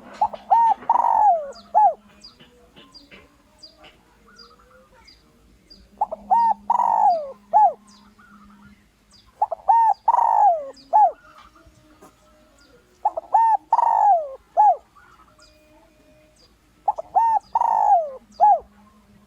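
Spotted dove cooing: five phrases of three or four arching notes, one drawn out and falling, repeated every three to four seconds. Faint high chirps of small birds sound between the phrases.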